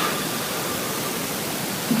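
Heavily amplified recording of a sleeping person's breathing: mostly a steady hiss between breaths, with a low snore starting just at the end.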